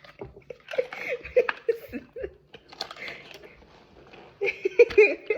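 Girls giggling in short bursts, with scattered small plastic clicks and handling noises between.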